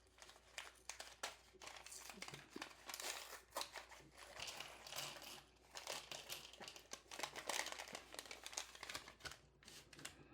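LEGO set packaging crinkling and rustling as it is handled, in irregular crackles and rustles.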